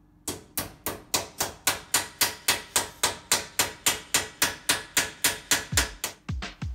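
Hammer blows on the end of a sheet-metal car body panel held on a block in a vice, forming a slight dog leg: sharp metallic strikes at a steady rate of about four a second. Music comes in faintly near the end.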